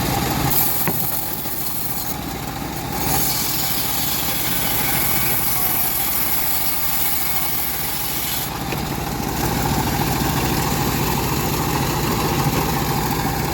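Engine of a home-built bandsaw mill running steadily, with a high hiss over it that drops away briefly twice.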